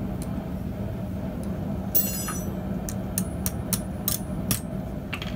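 Steel rod and steel jig bar being handled on a steel block: a ringing metal clink about two seconds in, then a scatter of sharp, light metal clicks and taps. A steady low hum runs underneath.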